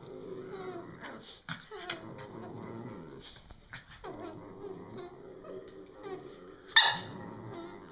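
Two Cavalier King Charles Spaniels play-fighting, with continuous low, wavering growling. A single short, loud yip cuts through near the end.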